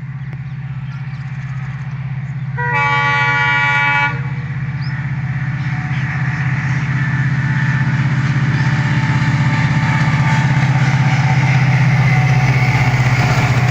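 Train approaching, its locomotive engine running with a steady low drone that grows louder. About three seconds in comes one horn blast, about a second and a half long and made of several tones together.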